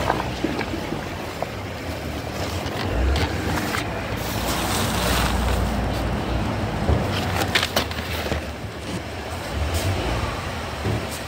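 Shopping being loaded into a car boot: plastic carrier bags rustling and crinkling, with several sharp knocks as items are set down on the boot floor.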